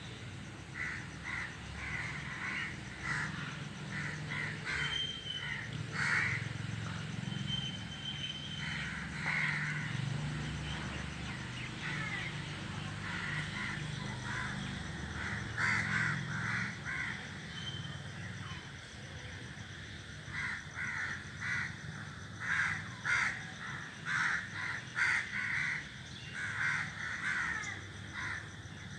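A group of crows cawing from a tree, many short calls overlapping in quick runs with a couple of brief lulls.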